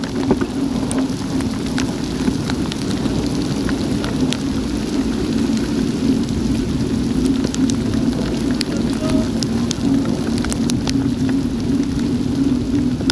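Heavy rain pouring steadily, with many sharp ticks of raindrops striking the Garmin VIRB action camera, over a steady low hum.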